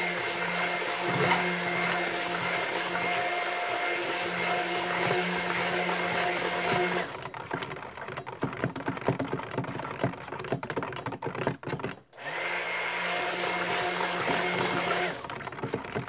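Handheld stick (immersion) blender running in a stainless steel pot of raw goat milk soap batter, a steady motor hum that runs for about seven seconds, stops, and starts again for about three seconds near the end. Between the two runs come scattered clicks and knocks.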